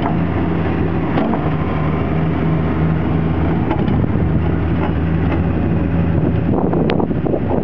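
A 535B dual-arch grapple skidder's diesel engine runs steadily with a low hum while its grapple is worked. Near the end come a few short knocks and clanks.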